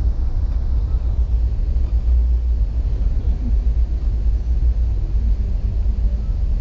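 Passenger train running, heard from inside the carriage: a steady low rumble with no breaks.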